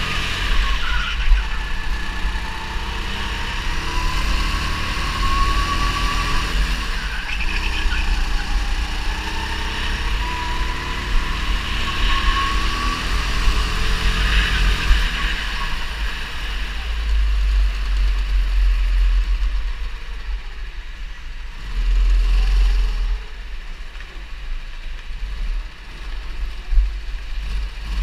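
A 270 cc kart engine running under throttle, its pitch rising and falling through the corners, then easing off for roughly the second half as the kart slows, leaving a heavy low rumble with uneven loud swells.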